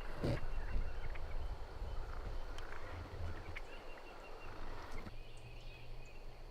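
Faint calls from a flock of young wild turkeys (jakes) at their roost, over a steady low rumble.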